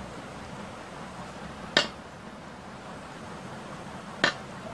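Two short sharp clicks, about two and a half seconds apart, over a steady background hiss, as a roll of high-temperature tape and a laser printer's pressure roller are handled while the tape is wound on by hand.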